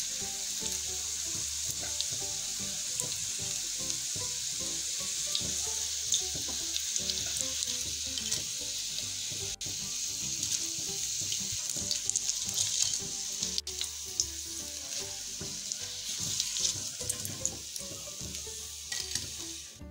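Hot oil sizzling steadily around breaded fish nuggets shallow-frying in a pan, with scattered crackles and pops. It thins out near the end.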